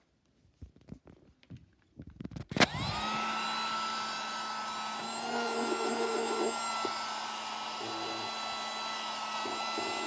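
Miniature handheld vacuum cleaner switched on about two and a half seconds in after a few handling clicks. Its small motor spins up with a rising whine and then runs steadily, with a few short rattling bursts over the top.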